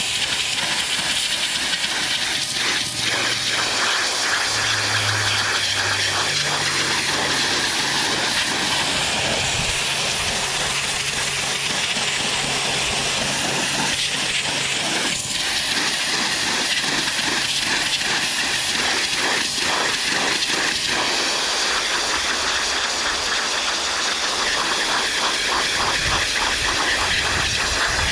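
Greenworks 2300 PSI electric pressure washer spraying, a steady loud hiss of the high-pressure water jet, with a low hum from the motor and pump through the first half.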